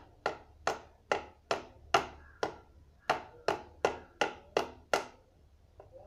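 About a dozen light, evenly spaced taps, a little over two a second, of pliers striking a calendar card laid over a fluorescent tube-light starter, tapping gently to crack the starter's glass bulb. The taps stop about five seconds in.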